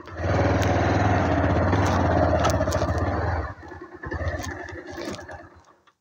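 Motorcycle engine running steadily at low speed, then cut off abruptly about three and a half seconds in, leaving fainter rustling and a few clicks that fade away.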